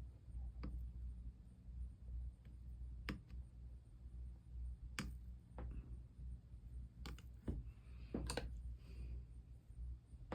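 Scattered light clicks and taps from soldering work on a stained-glass chime, the soldering iron, solder and tools touching the glass pieces, about eight irregular clicks over a steady low hum, with a brief soft hiss about eight and a half seconds in.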